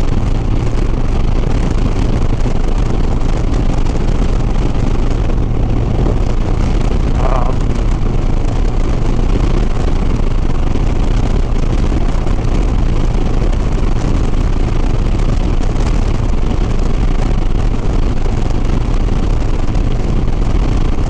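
Harley-Davidson Softail Sport Glide's V-twin and wind noise while the motorcycle cruises at steady highway speed, holding an even pitch and level.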